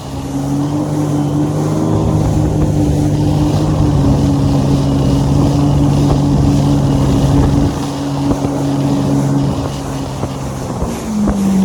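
Jet ski engine running steadily at speed across the water, its pitch stepping down a little near the end as the throttle eases.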